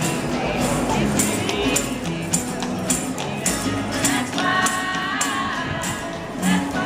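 Music with a steady percussion beat of jingling strikes, about two a second, and a voice singing from about four seconds in.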